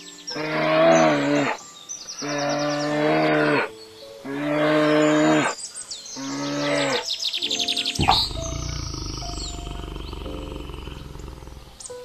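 Four long, drawn-out calls from a large animal, each about a second and a half, followed from about eight seconds in by a low rumbling growl, with rapid high bird chirps above.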